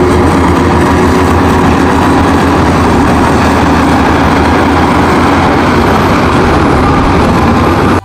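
Shantui crawler bulldozer's diesel engine running steadily while it pushes a pile of earth and rock.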